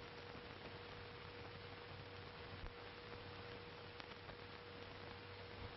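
Steady hiss and hum of an old 1930s optical film soundtrack, with a thin steady tone and a few faint crackles.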